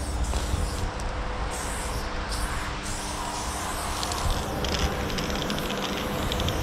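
Aerosol spray-paint can hissing in short bursts, most densely in the second half, over a steady low rumble.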